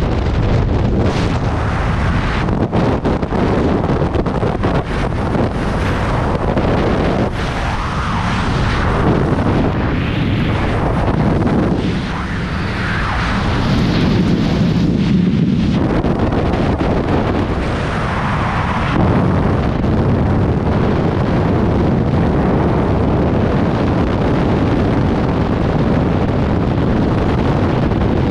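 Freefall airflow buffeting a helmet-mounted camera's microphone: loud, steady rushing wind noise, with sharp crackling buffets during the first several seconds.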